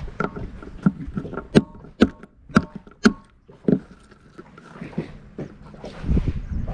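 Hands working a hard shell-like lump against a boat's deck: a string of irregular sharp clicks and knocks, some with a short ring, the loudest between about one and a half and four seconds in, with softer scraping between.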